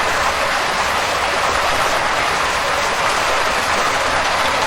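Heavy rain pouring down, a loud, steady, dense hiss.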